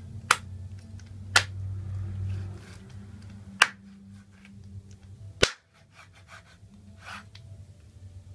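Large kitchen knife chopping through a raw whole chicken onto a wooden cutting board: four sharp chops, a second or two apart, over a low steady hum.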